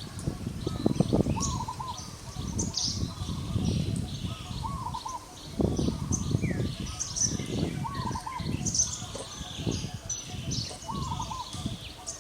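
Birds chirping, with one short wavering call repeated every few seconds, over irregular low rustling and rumbling noise.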